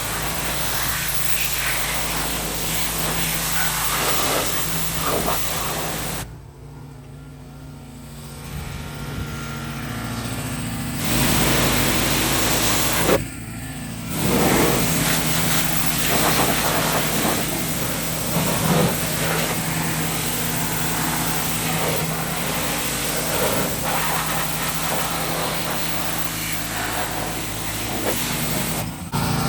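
Pressure washer running: a steady motor drone under the hiss of the water jet striking the car's body. The spray drops away for a few seconds about six seconds in, and again briefly near the middle.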